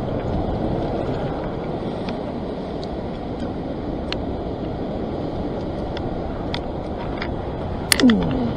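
Steady rush of sea surf washing over a sandstone rock ledge, with wind on the microphone and scattered light clicks. Near the end comes a brief, louder sound that falls in pitch.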